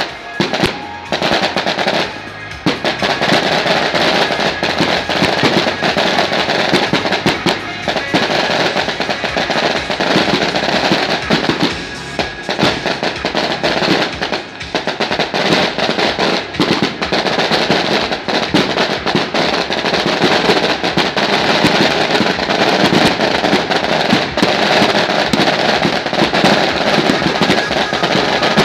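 A long string of firecrackers going off in a dense, rapid crackle, with brief lulls about two and a half seconds in and again around twelve seconds.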